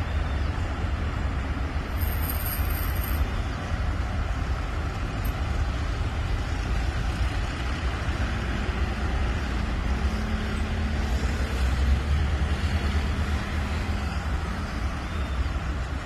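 Steady road traffic from cars, motorcycles and a van passing at a roundabout: a continuous rumble of engines and tyres. A brief high-pitched squeak comes about two seconds in, and one engine hum stands out in the second half.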